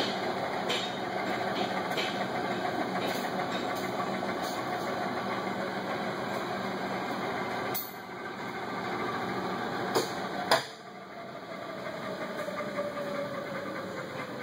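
Hardinge HC lathe running with a steady mechanical whine. About eight seconds in the sound drops, two sharp clunks follow, and then a whine falls slowly in pitch.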